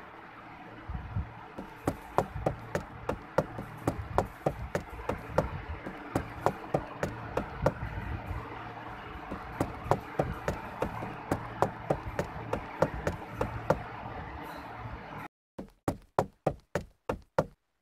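Small toy mechanism clicking in an even rhythm, about two clicks a second, over a steady low hum. It breaks off suddenly near the end, and a quicker run of clicks follows, about three or four a second.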